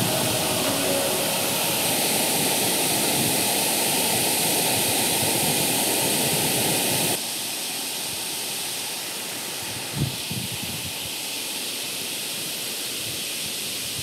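Steady rush of a waterfall close by, dropping somewhat in level about halfway through, with a soft low bump a few seconds later.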